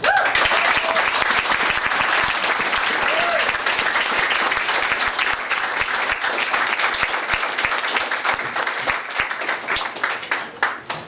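Audience applauding in a room, thinning to a few scattered claps near the end.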